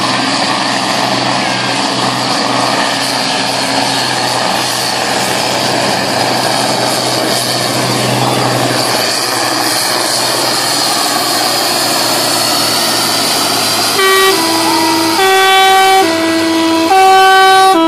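Diesel engine of a Fiat 1880 DT pulling tractor running hard under full load as it drags the weight sled. About fourteen seconds in, a loud two-tone horn starts, swapping between a higher and a lower note about once a second.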